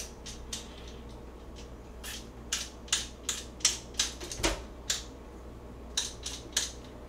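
A Korean radish being peeled by hand: about a dozen short, sharp scraping strokes of the blade in quick runs, with a soft knock about four and a half seconds in.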